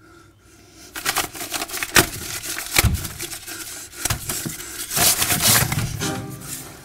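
Loud scraping and rustling with a couple of sharp knocks, then music with held notes begins about a second before the end.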